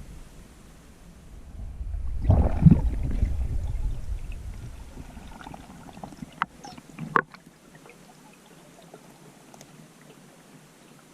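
Water rushing and gurgling close to the microphone, swelling for about two seconds, then two or three sharp clicks.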